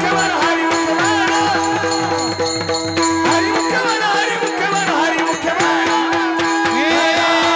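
Varkari devotional music: fast pakhawaj (mridang) drumming, its bass strokes gliding in pitch, over a held drone note, with a jingling rattle-like accompaniment.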